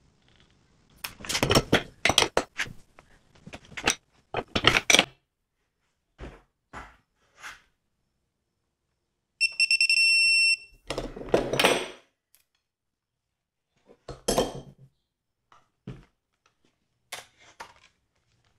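Digital torque meter on a hand wrench giving one steady high beep of a little over a second as the bolt reaches the set torque. Around it come several bouts of metallic clanking and rattling from the wrench and socket being worked on the bolts.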